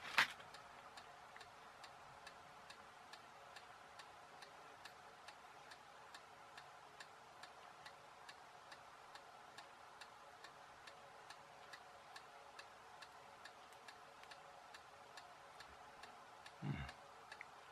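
Quiet room with a faint, steady ticking, about two ticks a second, like a clock. A brief soft bump near the end.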